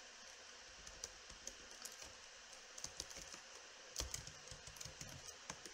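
Faint, irregular keystrokes on a computer keyboard as code is typed, with a quicker run of keys about four seconds in.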